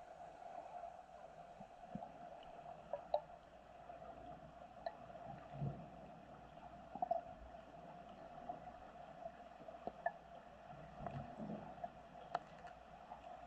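Faint, muffled underwater ambience heard through a submerged camera: a steady hum with scattered small clicks and soft thumps.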